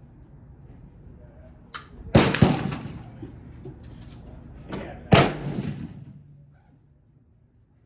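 Three sharp bangs, two in quick succession about two seconds in and a third about five seconds in, each trailing off over about a second.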